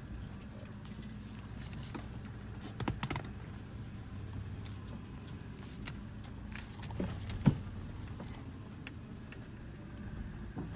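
Toyota 4Runner running slowly over a muddy, rutted trail, heard from inside the cab: a steady low engine hum under scattered clicks and rattles, with one sharp knock about seven and a half seconds in.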